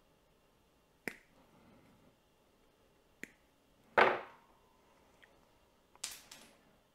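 Small handling sounds at a workbench: a few sharp clicks, a louder knock about four seconds in, and a brief scraping rustle near the end.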